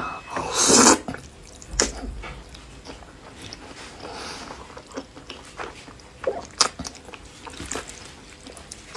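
Close-miked noodle eating: a loud slurp within the first second, then quieter chewing with scattered wet mouth clicks and smacks.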